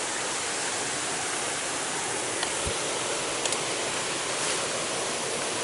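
Steady rushing of flowing water from a jungle stream, with a few faint clicks and a soft thump around the middle.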